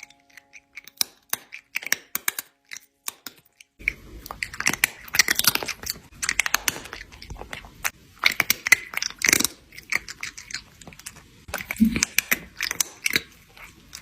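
Irregular crisp crunching and clicking, sparse at first and denser from about four seconds in.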